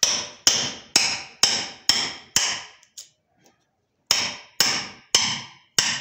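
Hammer striking a chisel, chopping out a hinge recess in the wooden door edge: sharp ringing blows about two a second, six in a row, a pause of about a second, then four more.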